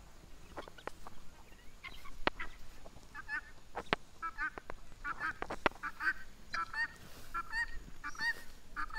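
Helmeted guineafowl calling: a few sharp clicks at first, then short repeated calls coming in quick runs of about three a second from about three seconds in.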